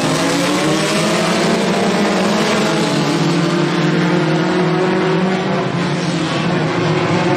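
A pack of four-cylinder Super 4 dirt-track race cars running together at speed, several engines overlapping, their pitch rising over the first few seconds as the field accelerates, then holding steady as the cars run into the turn.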